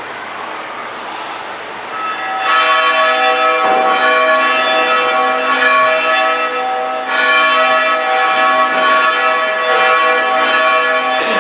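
Bells chiming: struck notes ring on and overlap, restruck every second or few. The ringing grows much louder about two and a half seconds in.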